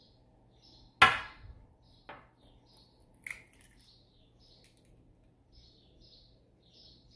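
An egg cracked sharply against the rim of a bowl about a second in, followed by two lighter clicks of eggshell.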